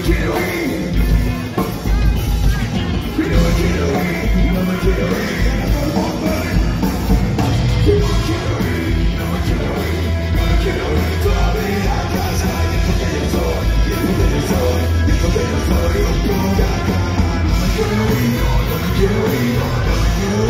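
Live rock band playing loud: electric guitars, bass, drums and violin, with a singer, over a steady driving beat.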